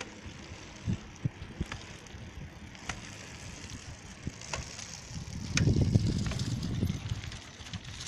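Bicycle rolling over interlocking paving stones, the tyres giving a steady rumble with scattered rattles and clicks from the bike. The low rumble swells louder for a second or two a little past the middle.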